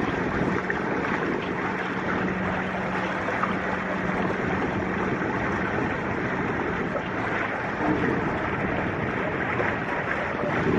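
Steady rush of wind and water on the open deck of a moving car ferry, with a low engine hum underneath for about the first half.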